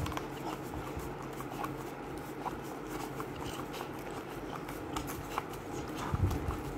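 Rottweiler puppy licking yogurt out of a small plastic cup, a run of quick, irregular wet lapping clicks. A louder dull bump comes near the end.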